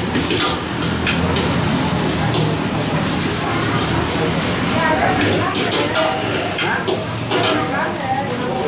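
Egg fried rice being stir-fried in a steel wok over a gas flame: steady sizzling, with a metal ladle repeatedly scraping and clinking against the wok as the rice is tossed.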